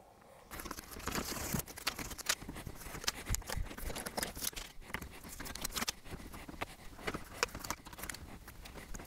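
Aluminum foil being peeled and crinkled off a plastic bumper by hand: a run of soft, irregular crackling and small clicks.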